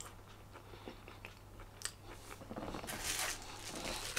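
Faint chewing clicks, then from about three seconds in, a louder rustling of packaging being handled.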